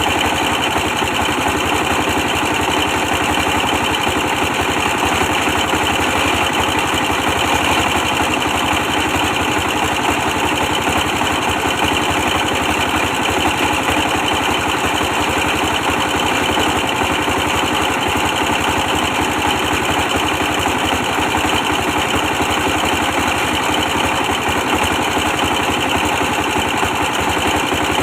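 A 24 hp diesel engine running steadily at a constant speed, powering a brick press.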